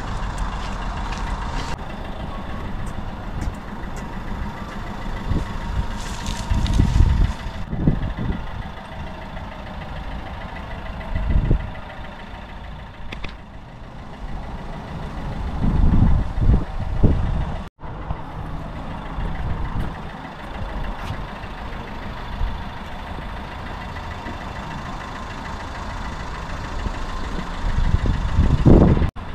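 Outdoor road-traffic ambience: a steady background with a low rumble that swells up several times as vehicles pass. The sound drops out abruptly twice, once about two-thirds of the way through and once just before the end.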